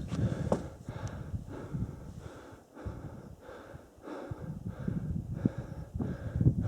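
A person's heavy, rhythmic breathing, out of breath from climbing at high altitude.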